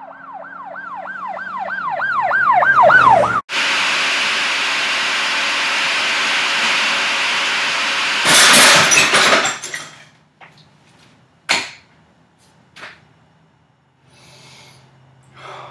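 A warbling, siren-like tone whose repeats come faster and faster for about three seconds, then a food processor running with a loud, steady whir for about five seconds. A louder harsh grinding burst follows, then a few separate clicks.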